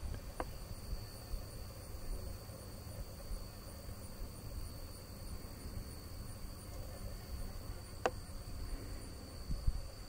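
Insects in the grass trilling steadily on one high, unbroken tone, over a low rumble, with two faint clicks: one about half a second in and one near the end.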